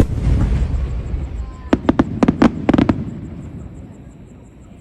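Aerial fireworks: a loud boom right at the start that rumbles on, then a quick run of six or seven sharp cracks about two seconds in, dying away after about three seconds.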